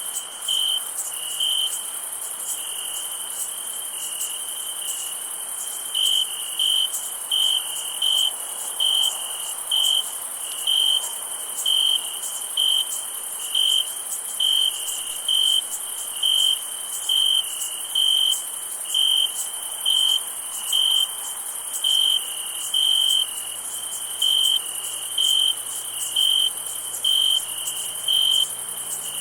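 Crickets chirping on a summer night. One close cricket gives evenly spaced chirps, about three every two seconds, over a continuous high-pitched trill of many other insects.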